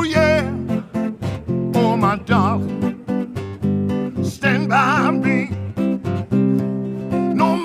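Music: acoustic guitar strumming a steady chord rhythm, with a wavering, vibrato-laden melody line coming in a few times.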